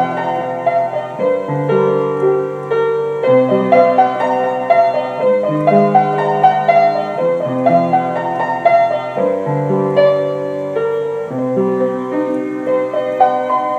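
Background piano music: a melody over held chords in a steady rhythm.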